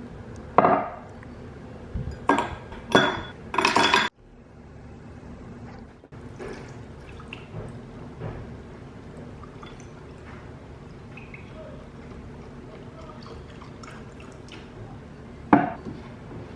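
Liquid being poured into a glass, with a few sharp clinks and knocks of glass and dishware in the first four seconds and one more sharp clink near the end.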